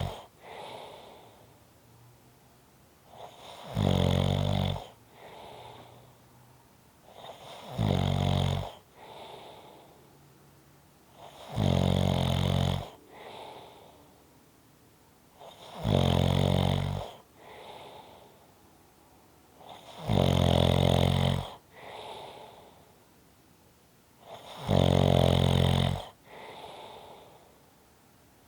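Steady snoring: a loud snore on each breath in, about every four seconds, each followed about a second later by a softer breath out.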